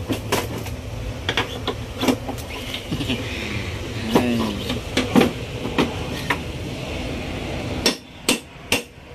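Irregular hammer blows on a metal tool against aluminium airframe structure, knocking a corroded stringer loose, over a steady low background hum. Near the end come four quicker, sharper strikes.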